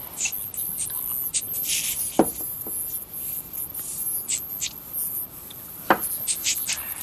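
Scrambled audio of an encrypted pay-TV channel: a garbled run of short, scratchy hissing bursts in a speech-like rhythm, with two sharp clicks about two seconds in and near six seconds.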